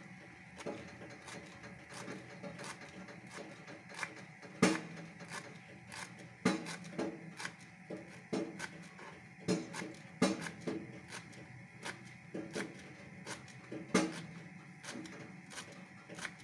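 Kitchen knife chopping fresh green herbs on a wooden cutting board: irregular taps of the blade on the wood, a few a second, with several louder knocks scattered through.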